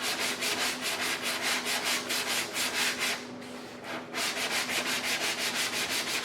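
Sandpaper on a sanding block rubbed back and forth over body filler on a car panel, about five strokes a second, with a short pause a little past halfway.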